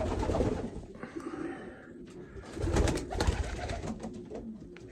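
Pigeons cooing in a loft, with two bursts of rustling and bumping, one at the start and one about three seconds in, as a young pigeon is handled to have a leg ring fitted.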